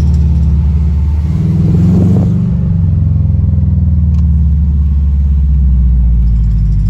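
Car driving slowly, heard from inside the cabin as a steady low rumble of engine and road.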